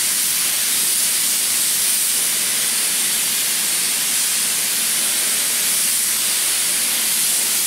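Gravity-feed paint spray gun running on compressed air, a steady loud hiss as it sprays a coat of primer.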